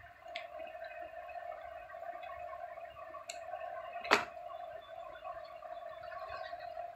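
Scissors trimming excess from a decorated cardboard tube: one sharp snip about four seconds in, with two fainter clicks before it, over a steady faint hum.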